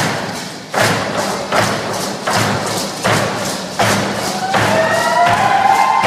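Drum beaten in a steady dance beat, about four strokes every three seconds. Voices join in singing held notes about two-thirds of the way through.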